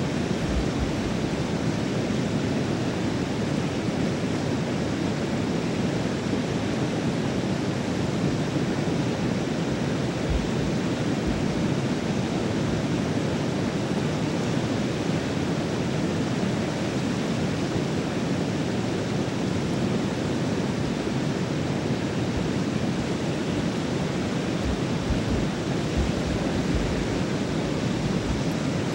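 Heavy whitewater pouring out of a dam's open sluice gates and churning below them: a loud, steady rush of water.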